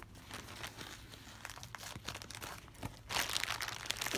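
Plastic mailer bag crinkling and rustling as it is handled and pulled open by hand, with a louder stretch of crinkling about three seconds in.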